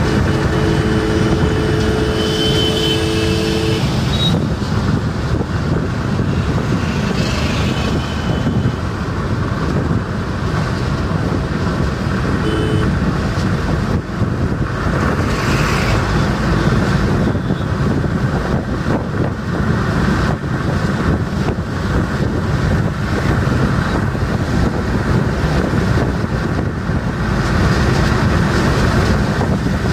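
Car cabin noise while driving at high speed on a highway: steady engine, tyre and road noise. A two-tone horn sounds for the first few seconds and again briefly about twelve seconds in.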